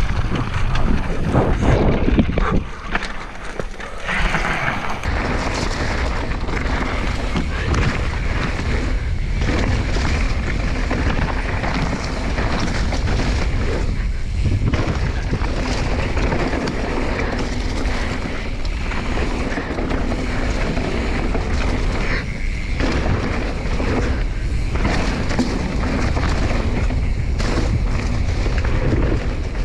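Wind buffeting the camera microphone over mountain bike tyres rolling on a dirt trail, with frequent knocks and rattles from the bike over bumps.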